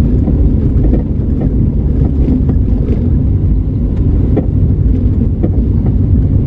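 Car driving slowly along a street, heard from inside the cabin: a steady low rumble of engine and tyres, with a few faint clicks here and there.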